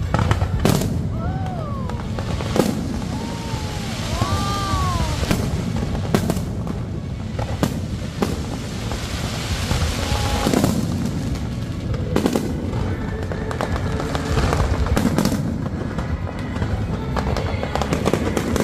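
Aerial fireworks display: many sharp bangs and crackles from shells bursting at irregular intervals, over a continuous low rumble.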